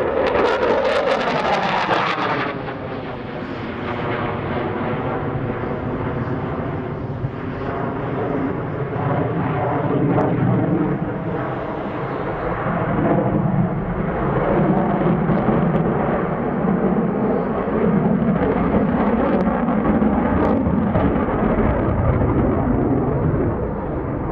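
Jet noise from an F-15C Eagle's twin Pratt & Whitney F100 turbofan engines as the fighter maneuvers overhead. It is loudest in the first two seconds, with a falling sweep in pitch, then continues as a steady rough rumble.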